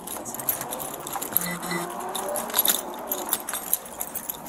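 Keys and metal gear on a police officer's duty belt jingling and clinking with each step as he walks.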